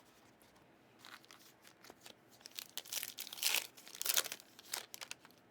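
Plastic wrapper of a trading card pack crinkling and tearing as the pack is ripped open, in a string of short rustles that grow loudest about three and a half to four seconds in.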